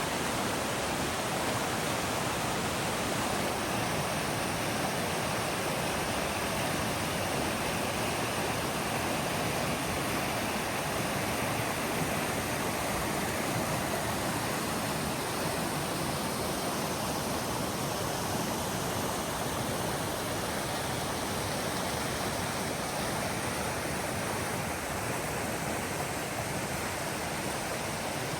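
Waterfall rushing, a steady, even wash of falling water.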